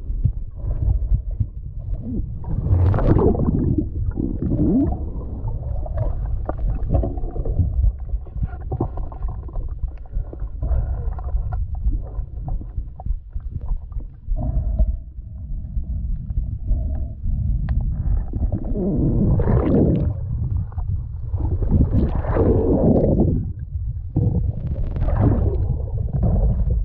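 Muffled low rumble of water moving around a camera held underwater. A few louder swells of about a second each come through, one about three seconds in and three more in the last eight seconds.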